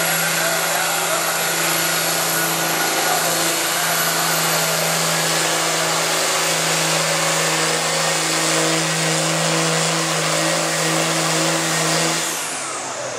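John Deere farm tractor's diesel engine running flat out under heavy load while pulling the sled: a loud, steady drone with a hiss over it. The drone drops away near the end as the engine comes off full power.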